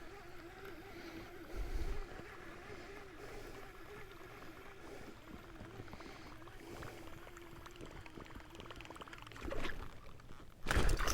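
A kayak being paddled on a river: quiet water sounds with a few low bumps from the paddle and hull, under a faint steady wavering hum.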